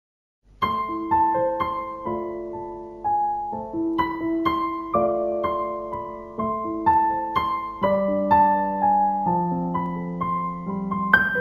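Slow piano music: single notes and chords struck and left to ring, starting about half a second in.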